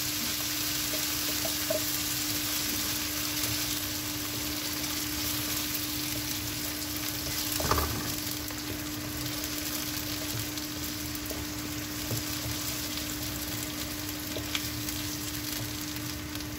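Tomato puree sizzling in hot oil in a pan as it is poured in and stirred with a wooden spatula. A steady low hum runs underneath, and there is a single knock about eight seconds in.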